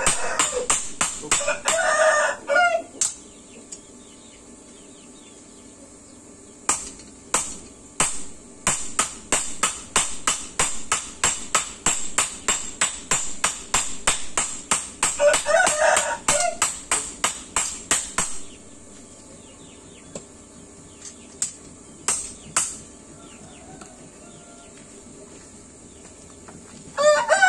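Two hand hammers striking hot steel on a steel post anvil in alternation, sharp metallic strikes about three a second. They come in two long runs with a pause between and a few lone strikes near the end. A rooster crows about a second long, twice during the hammering and once more at the end.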